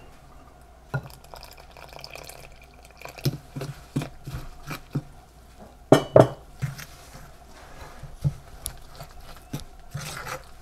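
Cornbread batter being stirred in a stoneware mixing bowl as milk is worked into the cornmeal, with scattered light clicks and knocks of the utensil against the bowl; the loudest knock comes about six seconds in.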